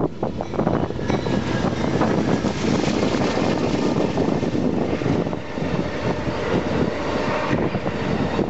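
Amtrak passenger train passing close at speed. Its two GE P42 diesel locomotives go by in the first few seconds, then a string of bilevel Superliner cars rolls past with steady wheel-on-rail noise.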